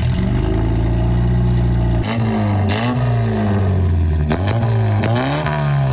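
Nissan 910 Bluebird's engine running through its modified 3-inch exhaust, idling steadily for about two seconds and then revved up and back down several times.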